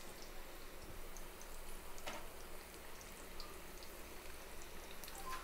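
Hot oil sizzling and bubbling in a kadai, deep-frying small pinches of ragi flour and spinach pakodi batter, with scattered small pops and one sharper pop about two seconds in.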